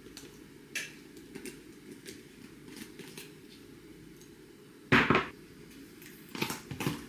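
Light clicks and knocks of kitchen work, with a louder clatter about five seconds in and a few more knocks near the end, over a steady low hum.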